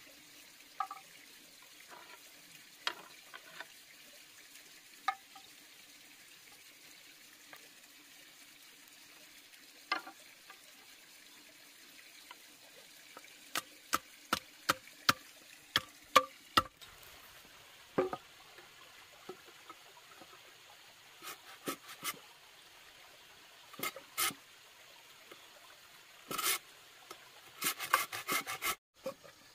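Scattered knocks and taps of hard objects, with a quick run of about six sharp strikes about halfway through and a few more bunches of clatter near the end.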